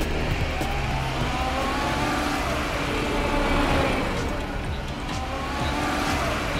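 Cartoon car engine sound effect revving up twice, rising in pitch each time, over background music.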